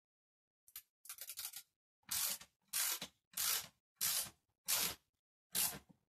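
Disc brake caliper bolts on a mountain bike being tightened with a tool while the brake lever is held, to centre the caliper so the pads don't rub the rotor. A few faint clicks, then from about two seconds in a regular run of short rasping strokes, about one and a half a second.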